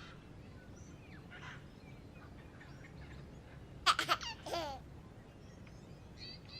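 Quiet background broken about four seconds in by a brief burst of high-pitched calls that slide downward, with faint chirps near the end.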